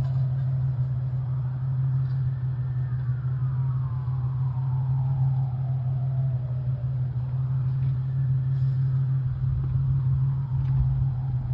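Road traffic: vehicles passing one after another, each one's whine falling slowly in pitch as it goes by, over a loud steady low hum.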